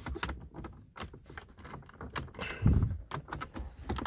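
Plastic centre dash panel of a Nissan X-Trail T31 being jiggled and pushed into the dashboard: a run of light plastic clicks and knocks, with one heavier thump a little under three seconds in.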